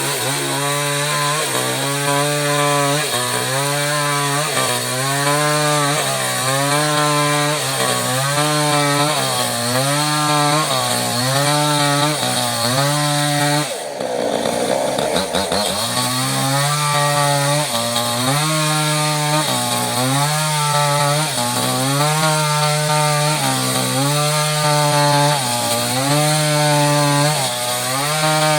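Small chainsaw cutting lengthwise through mahogany, its engine pitch dipping and recovering in an even rhythm, about once every second or so, as the chain bites under load. About halfway through the engine briefly drops in speed, then picks up and carries on cutting.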